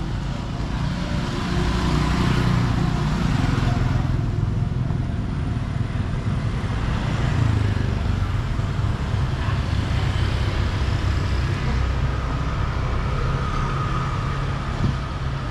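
Street traffic: cars and motor scooters running along a town street, a steady low engine rumble with road noise.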